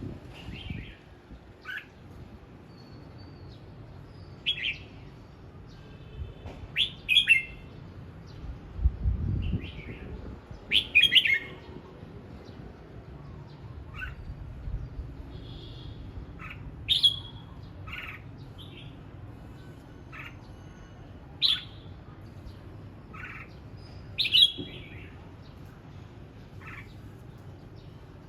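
Red-whiskered bulbul practising its song: short, separate chirping phrases every second or two. A low rumble comes about nine seconds in.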